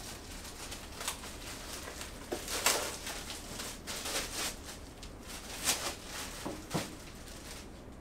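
Scattered light knocks and rustles from drawer parts of a flat-pack dresser being handled and fitted during assembly, the loudest a little under three seconds in.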